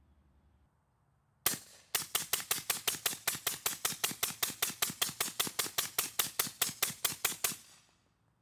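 Sig MCX short-barrelled rifle in .300 Blackout firing Freedom Munitions HUSH 220-grain subsonic rounds through a Sig Sauer SRD762-QD suppressor. One shot about a second and a half in, then after a short pause a rapid string of shots at about five a second for some five seconds, emptying the magazine.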